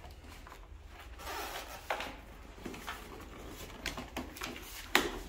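Hands gripping and sliding on a large cardboard box, with short scraping and rubbing noises and a sharp knock near the end.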